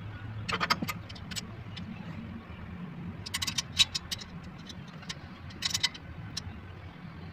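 A car engine running steadily with a low hum, with sharp metallic clinks and jangles three times over it, like tools or metal parts handled nearby.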